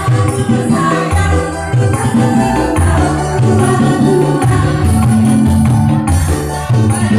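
A loud dangdut song played live through a PA: a woman singing into a microphone over keyboard backing with a bouncing bass line and regular high percussion hits.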